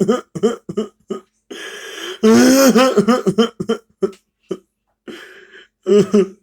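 A child crying in short, broken sobs, with breathy gasping stretches between the sobs.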